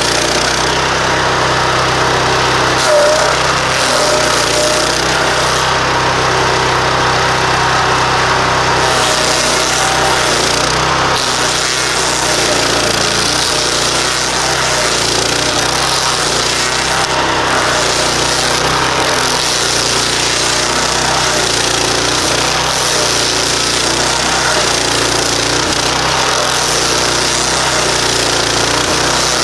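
Stump grinder's 15 horsepower Loncin engine running steadily under load while the nine-tooth cutting wheel grinds into an old pine stump, a constant engine note under the harsh rasp of the teeth chipping wood.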